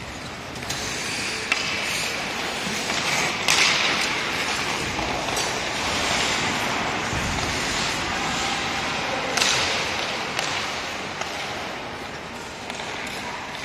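Ice hockey skates scraping and carving across rink ice, with two louder, hissing scrapes about three and a half and nine seconds in, and a sharp click about a second and a half in.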